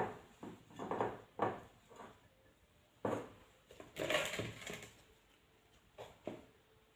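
Salted lemon quarters being packed into a glass jar by hand: a series of irregular knocks and clinks, the loudest cluster about four seconds in.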